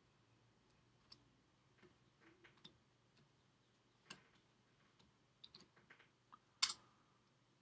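Computer keys pressed one at a time: faint, scattered clicks, with two sharper ones about four and six and a half seconds in, over a faint low hum.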